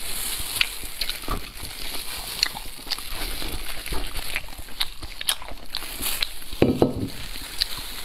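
Close-up eating of a roasted pork hock: wet chewing and crackly clicks as the meat is bitten and torn from the bone, with a louder low thump near the end.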